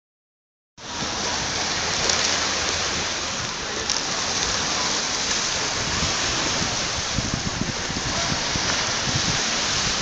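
Steady rushing seaside noise of wind and surf, cutting in abruptly just under a second in, with gusty low rumbles of wind on the microphone partway through.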